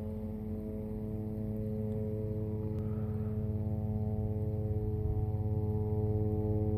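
A steady, unchanging droning hum: one low pitch with a stack of even overtones, held without a break.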